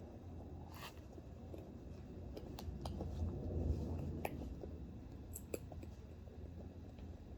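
Small sharp clicks and light scraping from tiny metal screws and wheel parts being handled while a scale RC crawler's ring-lock wheel is taken apart, about half a dozen separate clicks.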